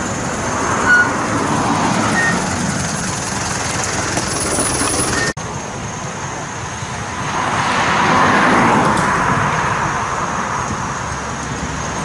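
Roadside traffic noise: vehicles running on the road, with one passing by that swells and fades about two-thirds of the way through. The sound drops out for an instant about five seconds in.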